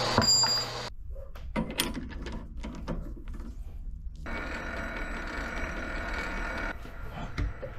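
Metal-cutting bandsaw running, cutting off about a second in, then scattered clicks and knocks of a chuck key being worked in a mini lathe's four-jaw chuck. After that a steady hum holding a few even tones sets in.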